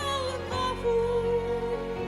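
Instrumental accompaniment of a Christian hymn between sung lines, with one long note held through the second half.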